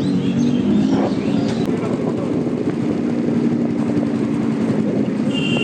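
Lamborghini Huracán Evo Spyder's V10 engine running steadily without revving.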